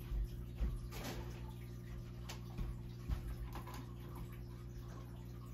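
Steady low electrical hum with a few light clicks and knocks from handling, about four of them spread over the first three seconds.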